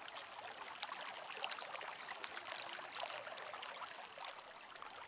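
Faint, steady water sound: a soft hiss of falling water with many small drops pattering through it.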